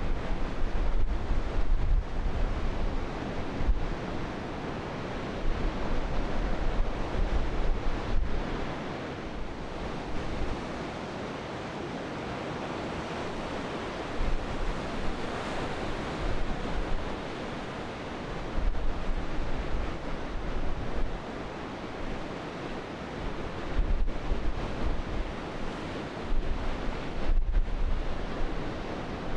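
Surf breaking and washing over a rocky reef as a steady rushing noise, with gusts of wind buffeting the microphone in low rumbles that come and go.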